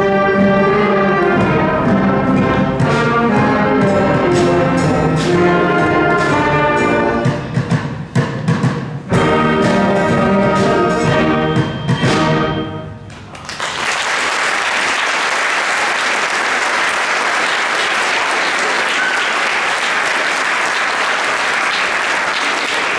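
A seventh-grade concert band of flutes, trumpets and other winds playing a Christmas piece, which ends a little over halfway through; the audience then applauds steadily.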